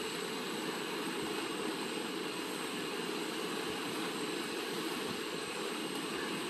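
Aquaculture pond aerator running with a steady, even noise that does not change.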